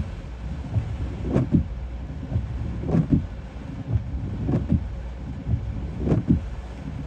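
Storm wind and rain heard from inside a car as a low, steady rumble, with a windshield wiper sweeping about once every second and a half.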